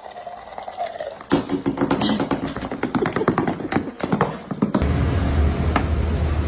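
A quick, irregular run of taps or clicks starting about a second in and lasting some three seconds, then a steady low rumble from about five seconds in.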